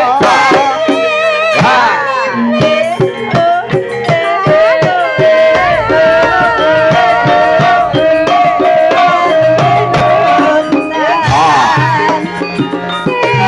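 Javanese gamelan (karawitan) music: kendang hand-drum strokes and steady metallophone tones under a wavering sung melody, with one long held note in the middle.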